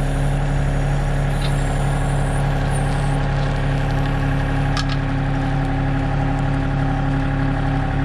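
John Deere 3025 compact tractor's diesel engine running at a steady speed while working a backhoe, with a couple of faint clicks in between.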